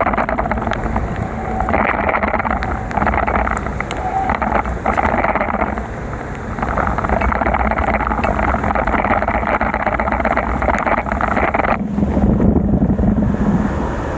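Wind buffeting the microphone over a steady hiss of tyres on a rain-soaked road; the hiss cuts off suddenly about twelve seconds in, leaving the wind rumble.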